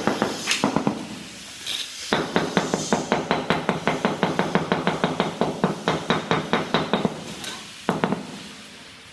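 Rapid, even tapping on ceramic floor tiles, about eight knocks a second, as tiles are tapped down into their bed. The tapping pauses briefly about a second in and stops near the end, with a few louder knocks.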